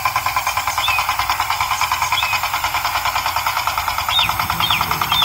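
Miniature tractor's motor running steadily while pulling a cultivator through sand, a fast, even chugging of about a dozen beats a second.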